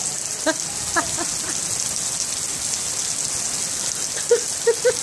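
Heavy rain pouring down onto a swimming pool and its deck, a steady hiss. A few short faint calls come through about a second in and again near the end.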